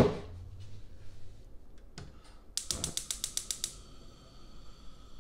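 A knock at the start, then a stove's control knob being turned on: a quick run of about ten sharp clicks over about a second, followed by a faint steady hum.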